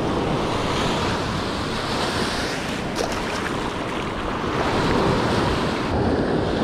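Ocean surf breaking and washing up over the sand at the shoreline, with wind rumbling on the microphone.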